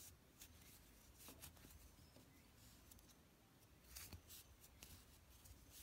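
Faint rustling of yarn drawn over a crochet hook and fingers as stitches are worked, a few brief soft scratchy brushes over near silence, most of them clustered a little past the middle.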